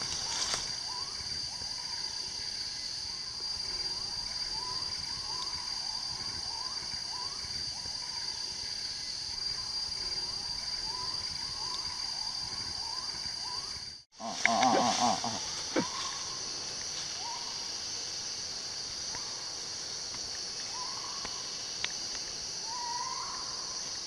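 Rainforest insects droning steadily at a high pitch, with a short rising call repeating about once a second through the first half. About two-thirds of the way in, the sound cuts out for a moment, followed by a brief louder noise.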